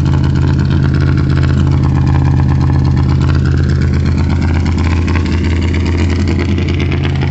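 Car engine idling steadily, shortly after a cold start in subzero weather, having sat unstarted for a couple of days.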